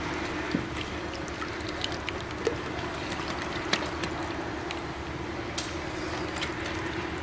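Silicone whisk stirring a thick liquid marinade in a mixing bowl: a steady wet swishing with scattered light ticks of the whisk against the bowl.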